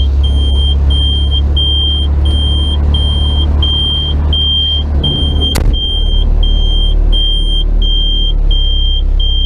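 Yuchai diesel engine of a front loader running steadily on a little throttle while still cold, just after its fuel injection pump was refitted. A warning buzzer beeps about twice a second over it, and there is one sharp click a little past halfway.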